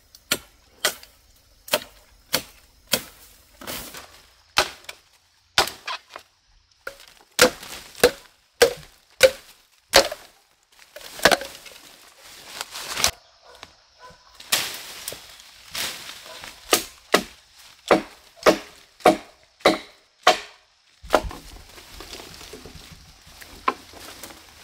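Machete chopping the side branches off a felled green bamboo culm: a long run of sharp, irregular cuts, about one or two a second, thinning out near the end.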